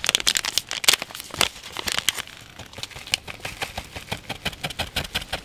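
Plastic bag of grated Parmesan crinkling as it is handled, a dense run of irregular crackles, a few louder ones in the first second and a half.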